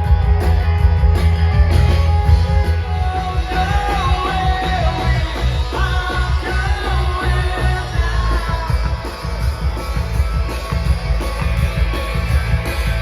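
Rock music with a singing voice, guitar and a heavy bass line.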